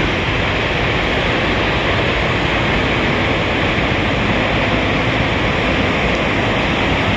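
Steady, loud drone of parked semi trucks idling, an even noise with a faint low engine hum underneath that does not change.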